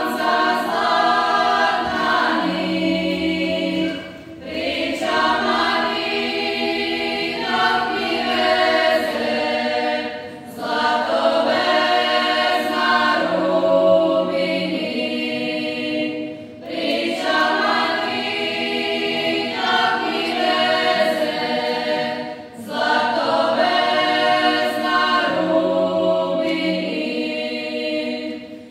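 A choir singing unaccompanied, in sung phrases of about six seconds, each separated by a short break.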